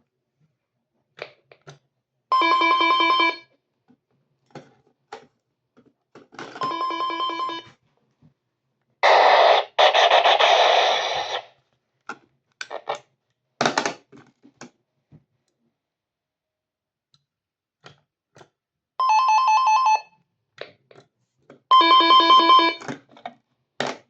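Intercom ringing in four separate bursts of about a second each, with a harsh two-second buzz in the middle and scattered clicks between the rings.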